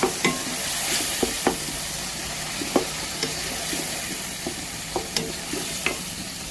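Chopped tomatoes sizzling in hot oil in a pan while a spoon stirs and mashes them, tapping and scraping the pan every second or so.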